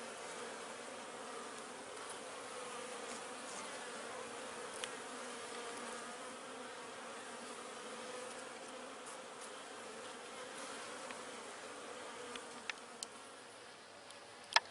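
Honey bees buzzing steadily at an open hive, a wavering hum. Near the end come a few sharp light clicks, the last one the loudest.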